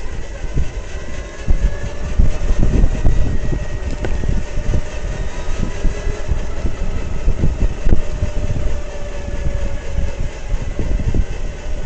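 Skyboard BR60 electric tricycle being ridden: a steady low rumble with a faint motor whine, broken by irregular knocks and rattles. These are the extraneous noises of a practically new trike that point to a fault.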